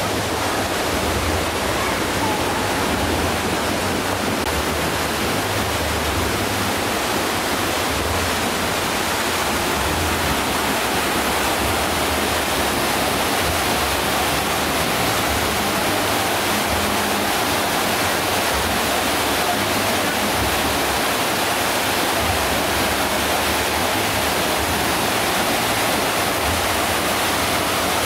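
Cascading water rushing steadily and loudly.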